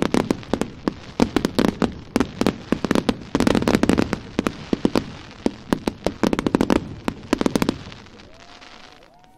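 A fireworks display's last barrage: a dense run of sharp bangs and crackles, several a second, that dies away about eight seconds in.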